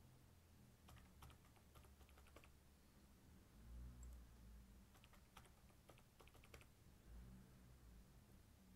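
Faint typing on a computer keyboard: two quick runs of about eight keystrokes each, a few seconds apart.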